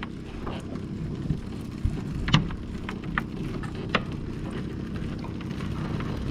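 Small fishing boat's engine running steadily, with scattered sharp clicks, knocks and patter of water as a gill net is hauled aboard; the loudest knock falls about two and a half seconds in.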